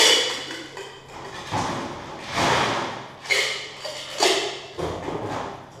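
Metal tin-on-tin cocktail shaker tins clanking as they are flipped and caught in a flair routine: a series of about six sharp metallic hits, each ringing briefly, the loudest right at the start.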